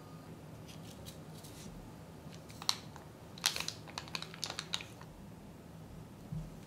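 A small paper candy-kit packet being torn open and crinkled by hand, a quick run of crisp ticks and rustles lasting about a second and a half, then a soft knock near the end.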